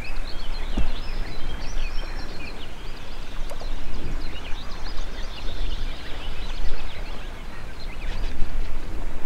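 Wind buffeting the microphone in uneven gusts, with many small birds chirping and singing throughout.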